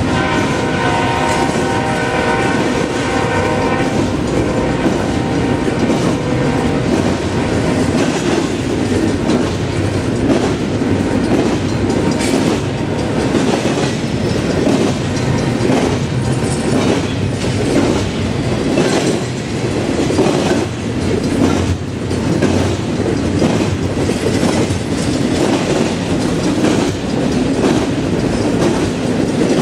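A freight train horn sounds for the first few seconds and fades away. Then the cars of a BNSF double-stack container train roll past with a steady rumble and a repeated clickety-clack of wheels on the track.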